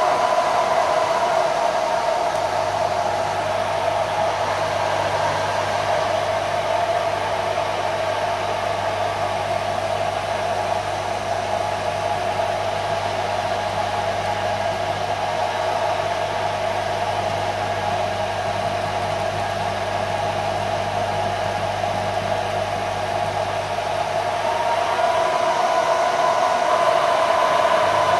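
HF vacuum-tube Tesla coil with a GU-5B tube running at about 10–11 MHz and drawing an RF plasma flame, a steady noise throughout. A low hum comes in a couple of seconds in and drops out a few seconds before the end.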